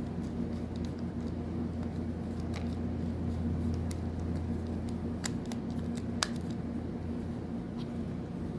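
A few sharp, light clicks of a small screwdriver and metal parts working on a fishing reel's side screws, over a steady low hum in a small room.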